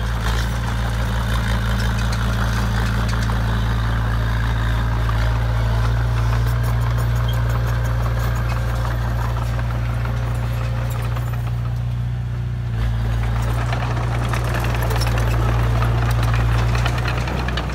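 Komatsu D20A small crawler bulldozer's diesel engine running steadily with a deep hum and a light rattle from the machine. The engine eases off briefly about twelve seconds in, then picks back up.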